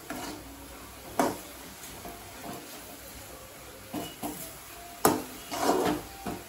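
A metal ladle scraping and knocking against an aluminium kadai while stirring a dry stir-fry of moringa greens. There are sharp clanks about a second in and again about five seconds in, the second the loudest, with shorter scrapes around them.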